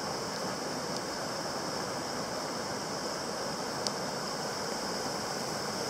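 Steady rush of a shallow river tumbling over rocks and boulders through a rapid.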